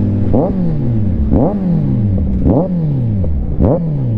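Kawasaki Z900 inline-four engine revved in quick throttle blips, about one a second, each rev shooting up sharply and then falling away, over the steady note of an idling engine.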